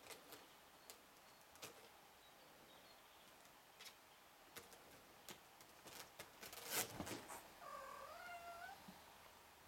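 Ragdoll kitten giving a single wavering meow, about a second long, a little past two-thirds of the way in. Before it come faint scattered scratches and clicks of small claws, building to a brief louder rustling scrape just ahead of the meow.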